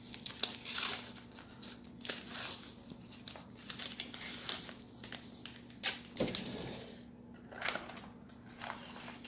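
Green painter's tape being pulled off the roll, torn and pressed around a glass light bulb: irregular crinkling and short ripping sounds.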